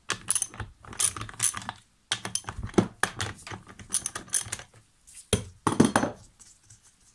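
Socket wrench loosening and removing the bar nuts on the side cover of a Stihl MS 391 chainsaw: a run of irregular metallic clicks and clinks, with one sharper knock about five seconds in.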